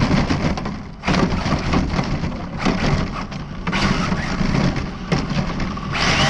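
Arrma Felony 1/7-scale RC car running over loose gravel: tyres crunching and stones rattling in uneven surges, easing off briefly about a second in and again around the middle.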